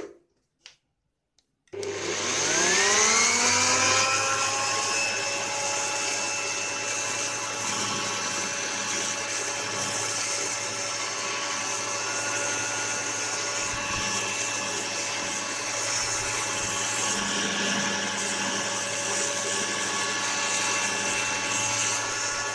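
A few light clicks, then an electric air blower switches on about two seconds in. Its motor whine rises as it spins up and then holds steady at low speed, blowing dust out of a desktop computer cabinet.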